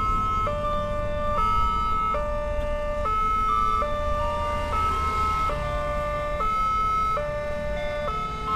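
Railway level-crossing warning siren sounding a two-tone alternating wail, switching between a higher and a lower note a little under once a second, the signal that a train is approaching and the crossing is closing. A steady low rumble runs underneath.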